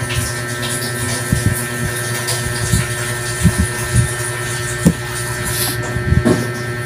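Steady motor hum, like a room fan, with several soft, low thumps scattered through it.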